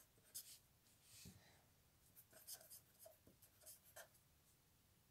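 Faint scratching of a felt-tip marker on paper, in short irregular strokes as a word is written out.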